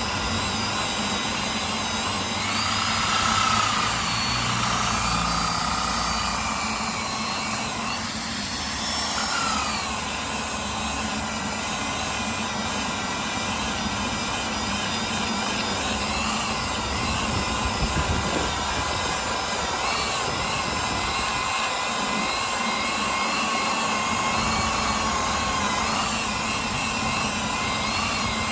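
Adjustable-speed disc grinder running with a paint-clogged sanding pad pressed against a boat hull, grinding off antifouling bottom paint. The built-up paint on the pad heats the coating and rubs it away. Its steady whine wavers in pitch as the load changes, with a few swoops in the first ten seconds.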